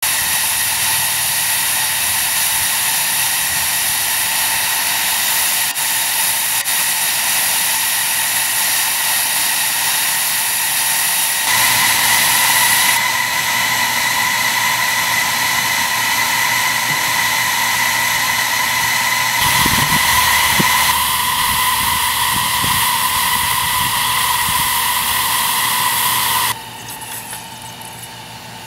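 Live steam scale model of ET&WNC #12 steam locomotive hissing steam steadily, with a faint steady high tone in the hiss. The hiss grows stronger about halfway through and drops away sharply near the end.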